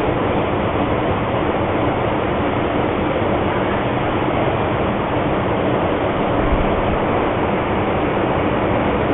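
Steady rushing background noise heard over a telephone line in a voicemail recording, with no voices. A brief low bump comes about six and a half seconds in.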